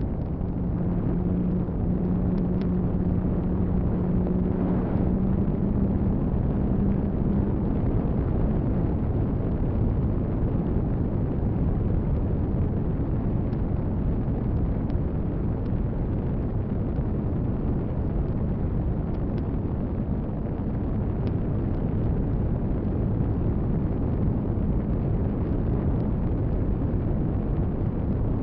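Steady rushing wind noise on the onboard microphone of a Radian RC glider in flight, heaviest in the low end, with a faint steady low hum that fades out about eight seconds in.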